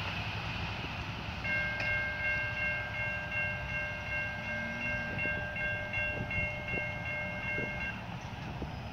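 Electronic railroad crossing bell ringing in a rapid repeating pattern as the gate arms rise after the train has cleared, stopping about a second before the end. A low rumble runs underneath.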